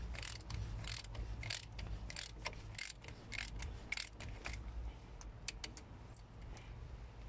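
Ratchet wrench with a bit socket being worked back and forth to undo a rusty bolt, the pawl giving a short burst of clicks on each return stroke, roughly every half second. After about four and a half seconds the clicking thins to a few scattered ticks as the bolt comes loose.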